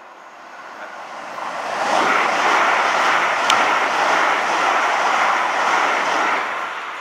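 A South West Trains Class 450 Desiro electric multiple unit passing through the station at speed: the rush of wheels and air builds over about two seconds, stays loud for about four, then begins to fade as the train goes by.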